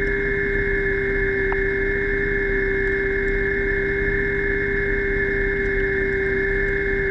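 Underwater scooter (DPV) motor running at a steady speed, heard underwater: a constant whine with one low and one high tone over an even rush.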